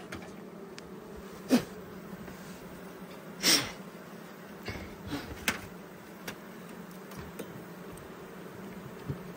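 Honey bees buzzing steadily over an open hive. Wooden hive frames and a metal hive tool knock and scrape against the box: a sharp knock about a second and a half in, a louder, longer scrape about three and a half seconds in, then a few lighter clicks.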